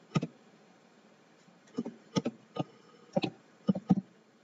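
Computer keyboard typing. A single keystroke comes first, then a pause of about a second and a half, then a quick run of about seven key clicks.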